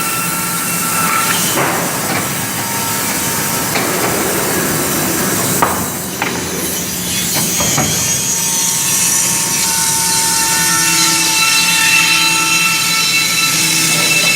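Wood-Mizer portable band sawmill running steadily, a machine hum under a high whine, with a few short knocks in the first half.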